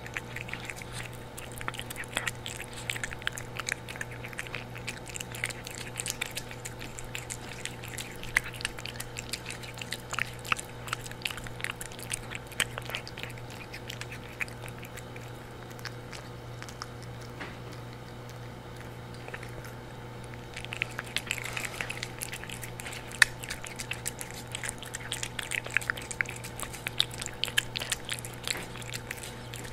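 A cat eating wet food from a stainless steel bowl close up: quick wet chewing and lapping clicks, which thin out for several seconds partway through and then pick up again. A steady low hum runs underneath.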